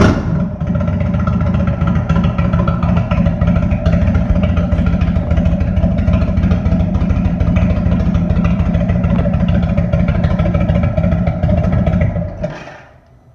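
Indian Thunder Stroke 111 V-twin idling steadily through custom slip-on mufflers that have been shortened, fully gutted and opened to a 2-inch exit, then shut off about twelve and a half seconds in.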